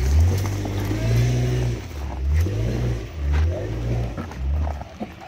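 A motor vehicle's engine revving in repeated surges of about a second each, its pitch rising and falling, fading out near the end.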